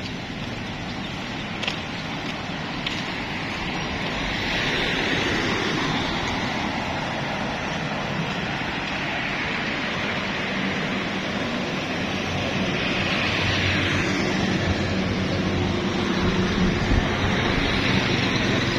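Road traffic noise with wind buffeting the microphone. Vehicles swell past twice, and a low engine hum comes in about halfway through.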